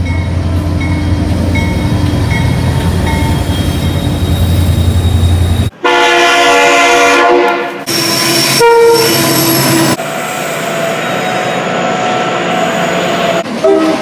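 Pacific National NR class diesel-electric locomotive passing close with a heavy low engine rumble. It is then cut off abruptly and followed by loud multi-note locomotive horn chords, two blasts about six and eight seconds in, then steady rolling train noise.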